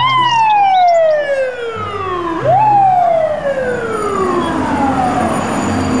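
Fire truck siren wailing: its pitch falls slowly, sweeps quickly back up about two and a half seconds in, then falls slowly again.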